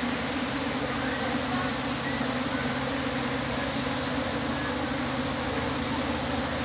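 Steady buzzing hum of a swarm of light-show drones flying overhead.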